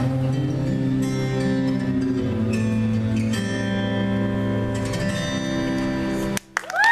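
Instrumental music with steady held notes, which cuts off abruptly about six and a half seconds in; high-pitched cheering voices start right after.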